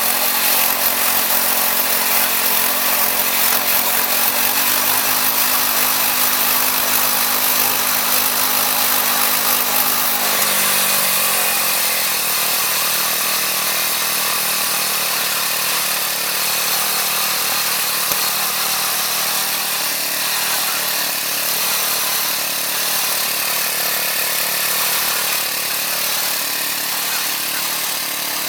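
Wood-Mizer LX25 band sawmill cutting white oak: the mill's engine running steadily under load beneath the loud hiss of the band blade in the wood. The engine note drops slightly about five seconds in and again around eleven seconds.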